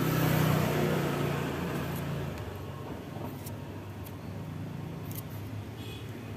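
Yamaha Byson's single-cylinder four-stroke engine idling steadily, a little louder for the first two seconds before settling, with a few faint clicks. The mechanic suspects the membrane of the emission-hose valve no longer works and stays open, which he blames for the way it sounds.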